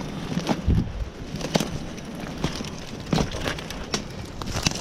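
Irregular crunching and crackling of footsteps moving through dry leaves and brush.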